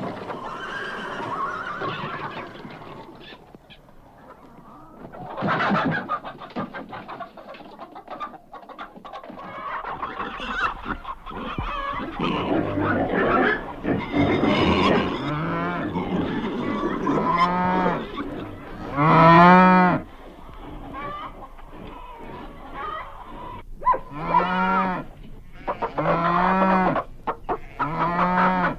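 Farmyard animal sounds: chickens clucking, then from about halfway a farm animal giving a run of short, repeated calls, the loudest about two-thirds of the way through.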